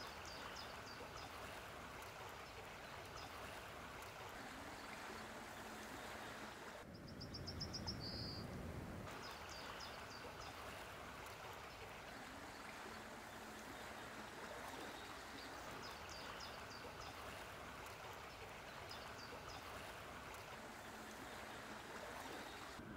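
Steady flowing-water sound of a small river, with a few short high chirps every few seconds. About eight seconds in there is a brief low rumble with a quick high trill.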